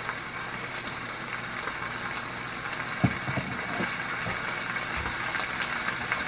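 Hamburger meat sizzling steadily in a hot skillet, with one light knock about halfway through.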